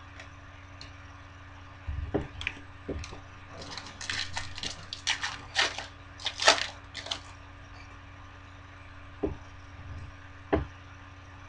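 A foil trading-card pack wrapper crinkling and tearing open, heard as a run of crackles that is densest in the middle. A few light knocks come from handling the pack and cards at the start and near the end.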